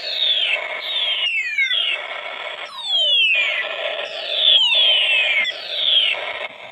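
Electronic alarm siren sounding: a shrill tone sweeps downward again and again, about once a second, over a harsh buzzing noise.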